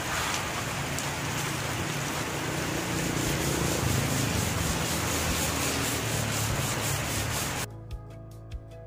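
Hand-sanding a teak block's PU insulator primer coat with P400 sandpaper: steady rubbing of the paper over the hardened coat. Near the end it cuts off suddenly and background music with a steady beat takes over.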